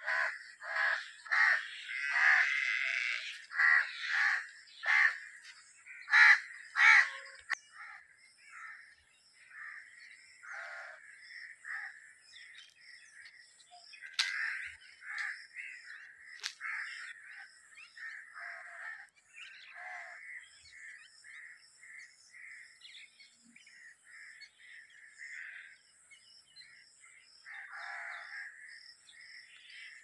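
Crows cawing: a run of loud, separate caws over the first eight seconds or so, then fainter bird calls carry on steadily, over a faint high steady hiss.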